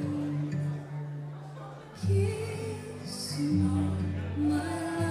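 A song with singing and instruments playing. It dips in loudness about a second in, and a louder phrase comes in about two seconds in.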